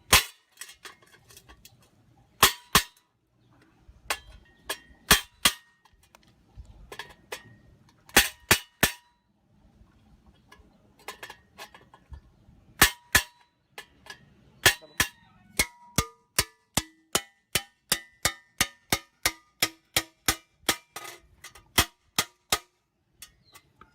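Hammer blows on a hollow steel tank, each strike sharp with a short metallic ring. The blows come in scattered groups at first, then in a steady run of about three a second through the second half.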